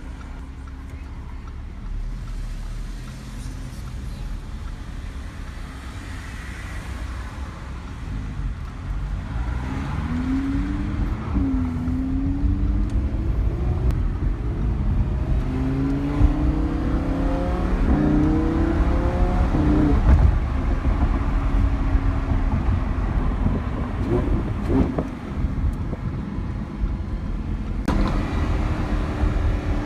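Lamborghini Huracán LP610-4's V10 engine heard from the passenger seat while driving. Its pitch climbs and drops back again at each gear change, and it grows louder as the car accelerates about a third of the way in.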